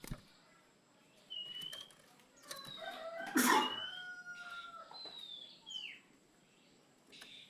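Oriental magpie-robin (kacer) singing: a string of clear whistled notes, several sliding down from high to lower pitch. One loud, harsh call comes about three and a half seconds in.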